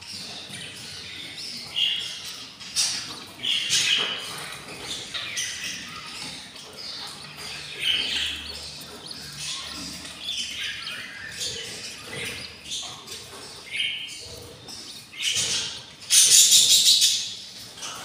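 Budgies chirping: short calls over and over, with a louder rapid series of notes lasting about a second near the end.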